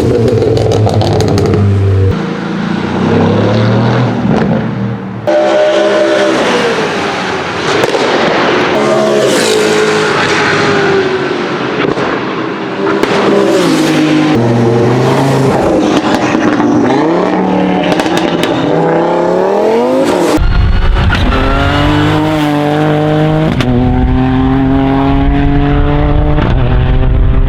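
Competition car engines revving hard, pitch sweeping up and down, with sharp exhaust pops and bangs from backfire and anti-lag scattered through. The sound changes abruptly twice, about five and twenty seconds in. In the last part a deep engine note climbs steadily under acceleration.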